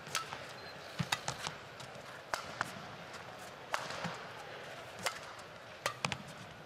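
Badminton rally: sharp racket strikes on a shuttlecock about once a second, mixed with short shoe squeaks on the court floor, over the low hum of an arena crowd.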